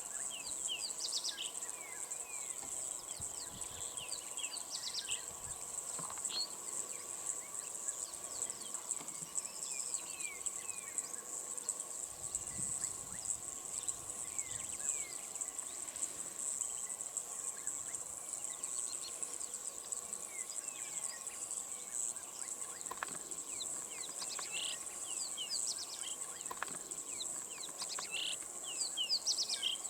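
A steady, high-pitched insect drone, with many short bird chirps and whistled calls scattered throughout.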